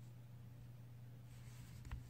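Quiet room tone with a steady low hum, then a faint rustle and a single light click near the end as the pistol is handled on a cloth.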